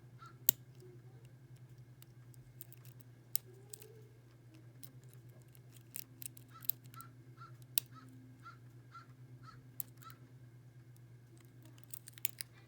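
Faint, scattered clicks of a lock pick working the pins of a six-pin First Watch padlock held under tension, the sharpest about half a second in and a cluster near the end, over a steady low hum. From about six to ten seconds in, a regular run of short high chirps repeats about three times a second.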